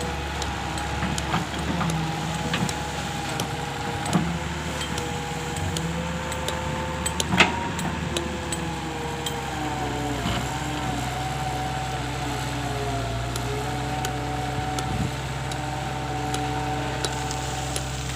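Excavator engine running steadily, with a whining tone that wavers slightly in pitch, scattered knocks throughout and one sharp bang about seven seconds in.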